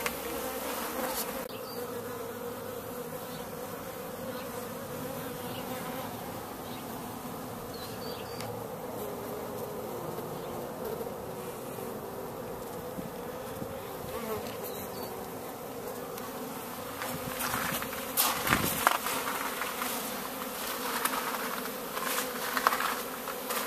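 Many honey bees buzzing in a steady drone around their nest. The buzzing grows louder and more uneven near the end, with a few brief crackles.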